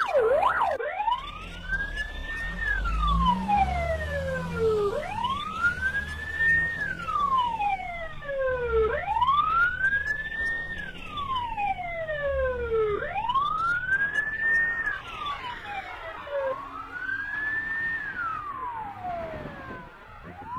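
Police siren in a slow wail, its pitch rising and falling about every four seconds, five sweeps in all.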